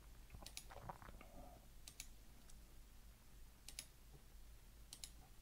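Near silence with a few faint, scattered clicks from computer use at a desk.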